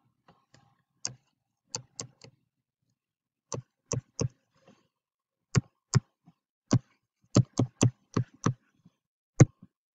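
Stylus pen tapping and clicking on a writing screen as numbers are handwritten: about sixteen short, sharp taps at an uneven pace.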